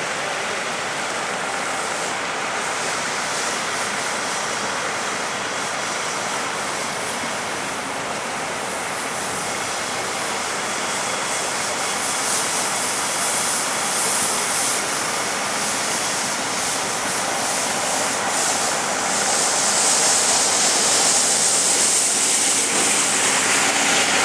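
Steady rushing noise with no distinct events. It grows louder and hissier over the last few seconds.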